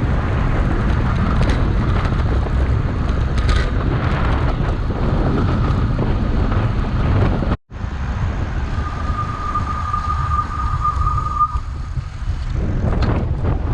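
Heavy wind buffeting on a bike-mounted camera's microphone while riding a bicycle, a dense low rumble throughout. It cuts out for an instant about halfway through, and a little later a high steady tone sounds for a couple of seconds.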